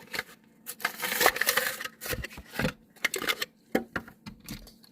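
Hot Wheels blister pack being opened by hand: the plastic blister and cardboard card crackle and tear, with a run of sharp clicks and knocks as the die-cast car is worked free.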